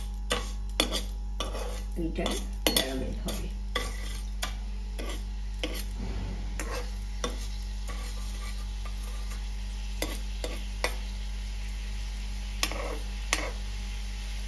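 A steel spoon stirring sugar and a spoonful of water in a non-stick kadai, scraping and clinking against the pan at irregular moments, most sharply about two to three seconds in. This is sugar being heated and stirred at the start of making caramel.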